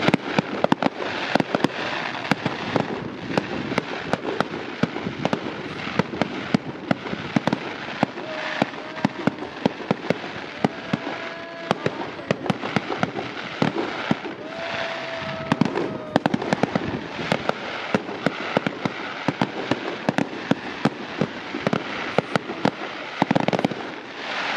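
Fireworks display going off: a dense, continuous barrage of crackling bangs, many per second, with a few short whistling tones in the middle.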